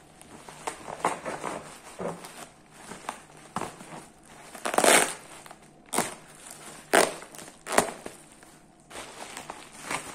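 Plastic bubble-wrap bag crinkling and rustling as it is handled and pulled open, with several loud, sharp crackles midway as scissors cut through the plastic.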